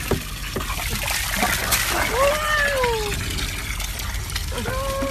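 Pool water sloshing and splashing as an otter slides into a shallow paddling pool and paddles around. Over it come two drawn-out vocal calls: one that rises and then falls, about two seconds in, and a shorter held one near the end.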